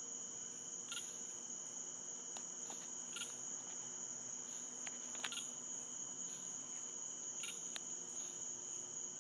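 Night insect chorus: a continuous high-pitched trill, with a separate short chirp repeating about every two seconds over it and a few faint clicks.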